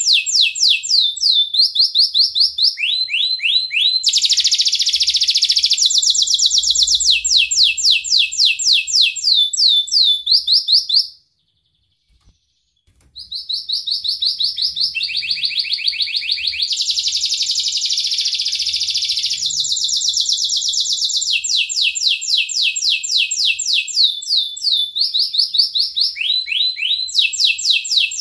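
Domestic canary singing a long song of fast trills, each a rapid run of one repeated note, switching to a new trill every second or two. The song breaks off for about two seconds around eleven seconds in, then resumes.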